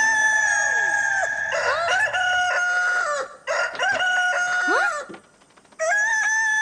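Cartoon rooster crowing loudly: about four long cock-a-doodle-doo calls in a row, the last one starting after a short silence near the end.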